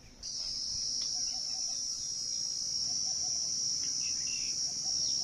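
An insect calling: one shrill, steady, high-pitched buzz that sets in a moment after the start and carries on without a break.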